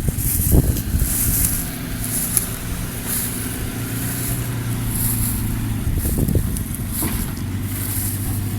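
Off-road 4x4's engine running at low, fairly steady revs while crawling on rocks, with a couple of short knocks.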